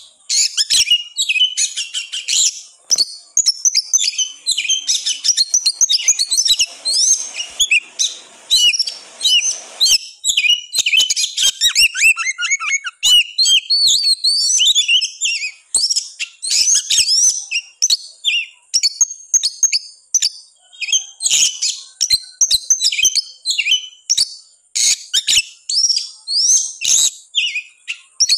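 Oriental magpie-robin (kacer) singing without a break: a fast, dense stream of high whistles, sweeping notes and sharp clicky chatter. It is the persistent, agitated full song that bird keepers play to goad a quiet caged kacer into singing.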